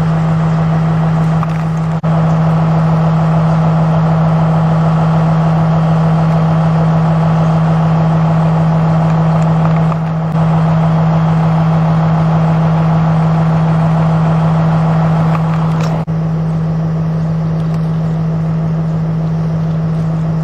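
A large engine running steadily at constant speed: a loud, even drone with a strong low hum. It is briefly broken three times, at about two, ten and sixteen seconds in.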